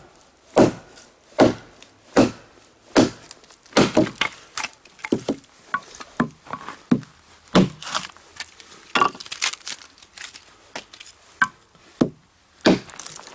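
Hatchet chopping and splitting firewood logs: sharp chops of the blade into the wood, about one every 0.8 seconds at first, then quicker, lighter strikes.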